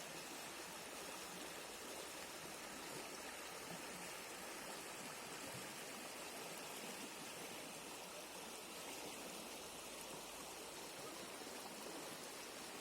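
River water flowing, a steady, even rush of moving water.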